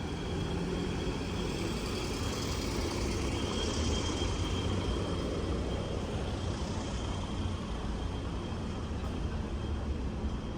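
City street traffic: a steady wash of cars going by with a low rumble, swelling a little about four seconds in as a vehicle passes closer.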